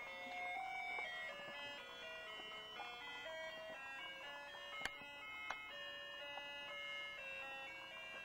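Thin electronic tune of plain, steady notes stepping from pitch to pitch, several sounding at once, with a sharp click about five seconds in.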